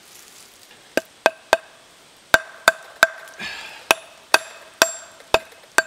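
About a dozen sharp knocks at an uneven pace as a Fiskars steel axe head is tapped down onto a new sugar maple handle to seat it. Each knock leaves a short metallic ring.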